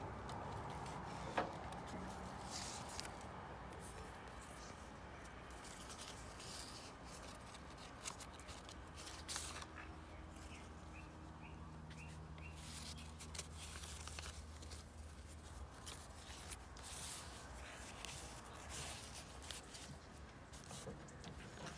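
Paper pages of a handmade journal rustling intermittently as they are turned and handled.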